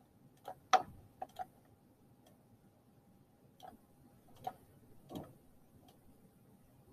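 A few faint, irregularly spaced clicks of a computer mouse while shapes are dragged and resized, over a faint steady hum.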